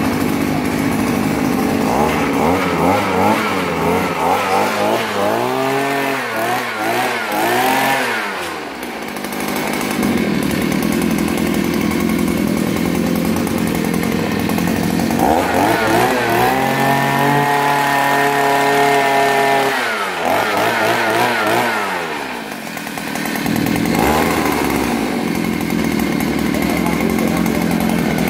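Oshima petrol earth auger's small two-stroke engine running with the auger spinning free in the air, not drilling. It idles, is revved up and down in a few wavering surges from about five to eight seconds in, and is then held at high revs for about five seconds from about fifteen seconds in before dropping back.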